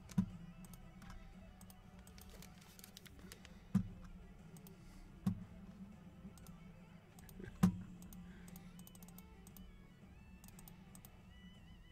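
Silver foil trading-card packs handled by hand: four light, dull knocks a second or two apart and scattered soft clicks, over faint background music.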